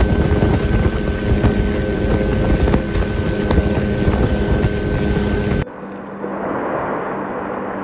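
Loud, steady engine drone and rushing wind heard from aboard an aircraft flying over the eruption. It cuts off suddenly about five and a half seconds in, leaving a much quieter low drone.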